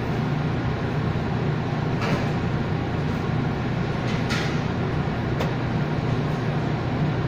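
Steady, even hum of commercial bakery machinery and ventilation, with a few faint brief scrapes from the hand work at the steel table.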